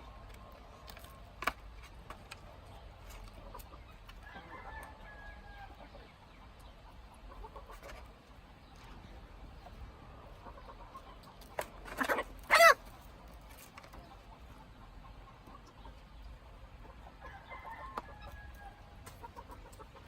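Chickens calling: faint drawn-out calls about five seconds in and again near the end, and one loud, short call a little past the middle, with a few sharp clicks around it.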